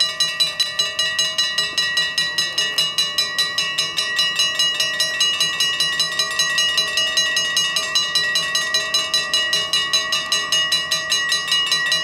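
The two mechanical bells of a Dutch AOB level crossing ringing in fast, even strokes, about four a second, warning of an approaching train while the barriers come down.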